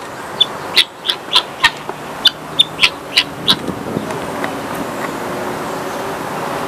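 Guineafowl giving a series of short, sharp calls, about ten in the first three and a half seconds, after which the calls stop.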